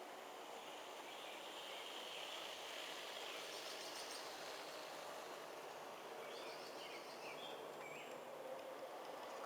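Faint, steady rolling noise of a G-scale model freight train's metal-wheeled cars running past on the track, with birds chirping at times over it.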